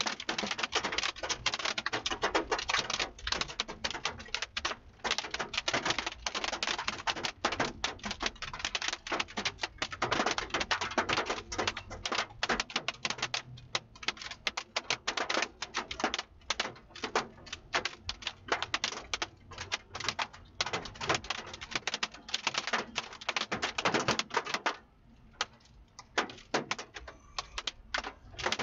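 Large drops hitting the vehicle's roof and windshield in a dense, irregular patter of sharp clicks, thinning out suddenly about 25 seconds in.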